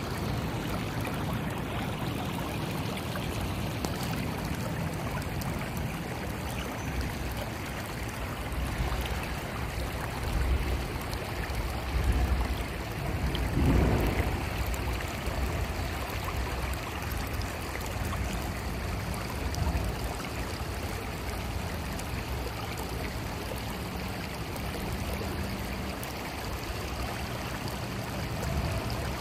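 Shallow creek water rushing and babbling over stones and mossy rocks, a steady wash that swells briefly louder about halfway through.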